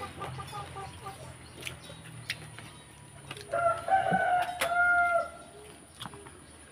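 A rooster crowing once, a single held call of under two seconds about halfway through. A few short clucks come near the start.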